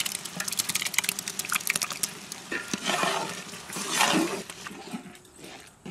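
Hot masala sizzling and crackling in a large cooking pot as curd is poured in, then two louder wet swishes about three and four seconds in as the curd is stirred through.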